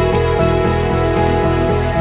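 Background music: sustained tones over a bass that pulses at an even rhythm.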